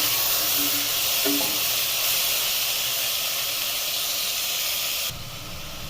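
Chopped tomatoes and onions sizzling in hot oil in a pressure cooker, a steady hiss. The hiss drops off abruptly about five seconds in.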